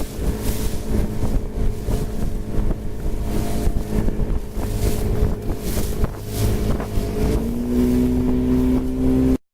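Motorboat engine running underway, with wind buffeting the microphone; the engine note shifts about seven and a half seconds in, and the sound cuts off abruptly just before the end.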